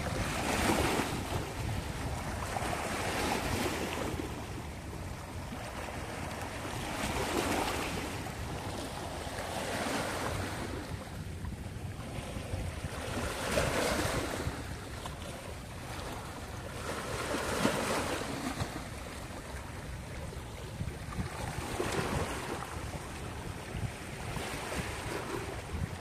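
Small sea waves washing in over rocks and pebbles at the shoreline, splashing and hissing in surges that come about every three to four seconds. Under them runs a steady low rumble of wind on the microphone.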